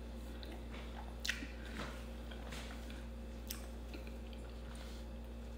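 Faint chewing and mouth sounds of someone eating a leafy-greens dish with the hands, with a few soft clicks and smacks, the clearest about a second in and again about three and a half seconds in, over a steady low hum.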